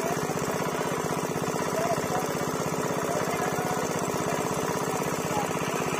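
A small engine running steadily at a constant speed, with a fast, even firing beat.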